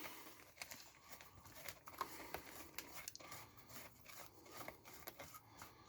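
Faint small clicks and light scraping of a hex key working the steering-knuckle bolts on an RC truck.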